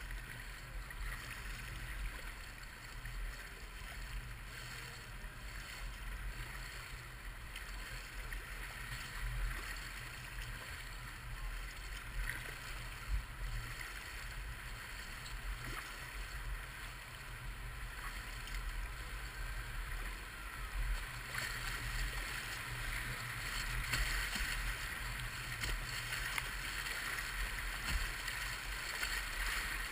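River water rushing and splashing, heard from low on the water, over a steady low rumble on the camera's microphone; the rushing grows louder about two-thirds of the way through.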